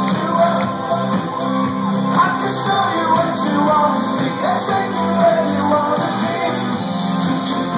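Live band performing a pop song: two singers over electric guitar, keyboards and a held bass line, recorded from the audience in a club.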